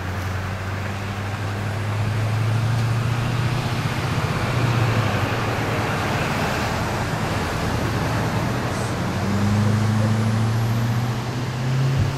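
Road traffic passing: vehicle engines humming and tyre noise on the road, swelling twice as vehicles go by.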